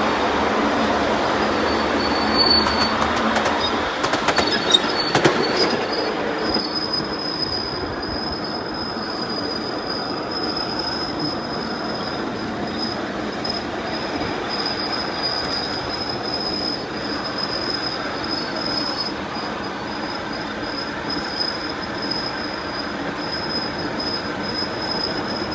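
Ride-on miniature railway train rolling along its track, heard from a passenger car: a steady rumble of wheels on rail, louder in the first few seconds inside a tunnel, with a few clicks. From about five seconds in a steady high-pitched whine runs along with it.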